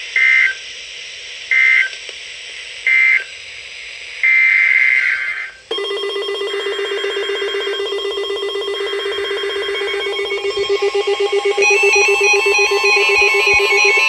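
NOAA Weather Radio SAME digital data bursts marking the end of a broadcast alert: three short, high electronic screeches about a second and a half apart, then a longer one. After that an electronic alarm tone sounds, steady at first, then a pulsing multi-tone alert pattern that gets louder near the end.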